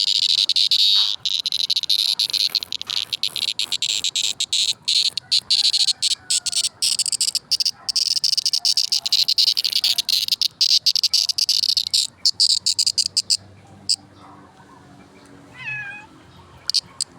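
A kuliglig, a calling insect, buzzing loudly and shrilly in rapid pulses, stopping abruptly about 13 seconds in. A short gliding call follows near the end.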